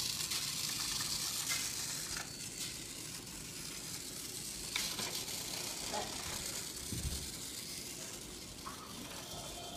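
Battery-powered Geotrax toy car running along its track, a steady high whirring hiss that fades after the first few seconds, with a few scattered clicks.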